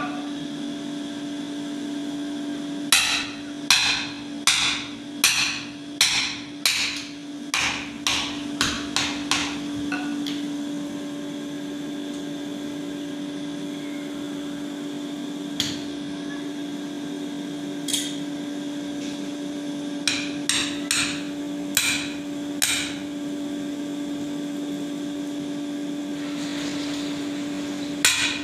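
Blacksmith's hand hammer striking red-hot iron on a small anvil to forge an axe head: runs of ringing metal blows, a heavy set at about two a second, then lighter quicker taps, single blows after a long pause, and more runs later. A steady hum runs underneath.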